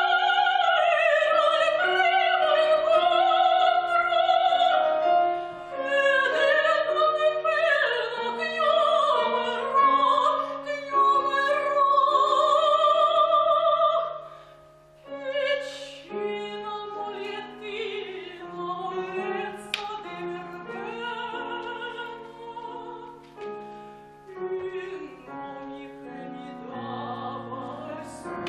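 Operatic female soprano singing with wide vibrato, accompanied by piano. The voice holds loud, high notes for about the first half, then the music drops sharply in level and continues as a quieter passage.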